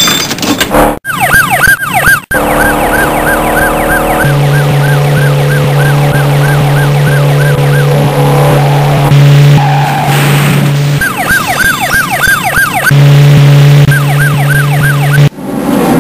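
Police siren sound effect in a fast yelp, its pitch sweeping up and down about three times a second. It drops out and cuts back in a few times, over a steady low hum.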